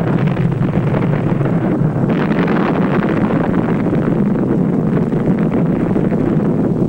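Atomic bomb test explosion: a loud, steady rumbling roar that holds without letting up.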